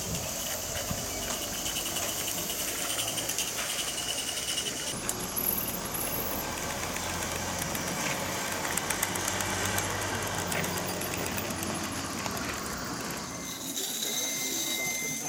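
G-scale garden model trains running on their outdoor track: a steady rolling sound from wheels on rails, with a hiss. The sound changes in character about five seconds in and again near the end.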